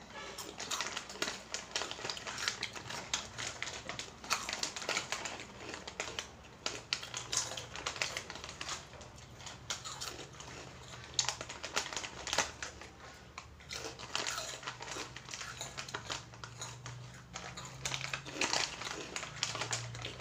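Irregular crinkling and crunching from a plastic packet of spicy Oishi snacks being handled and the crisp snacks being eaten.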